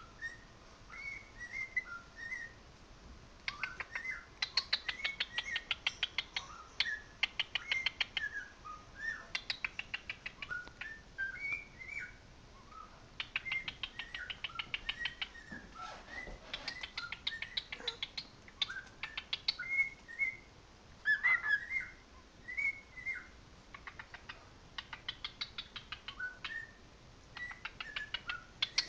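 Cockatiel singing: short whistled notes that slide up and down, alternating with bursts of rapid chirping every few seconds.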